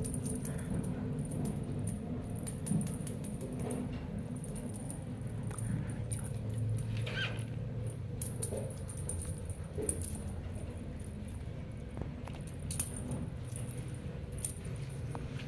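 Bengal kittens playing on a tiled floor: scattered light clicks and taps of paws and claws, with one short high call about seven seconds in.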